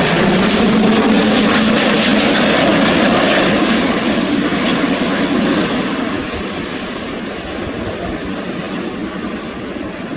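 Airbus A350-900's Rolls-Royce Trent XWB jet engines on final approach with landing gear down, passing low overhead. A dense jet noise with a low steady drone, loud at first, then fading steadily from about four seconds in as the airliner moves away toward the runway.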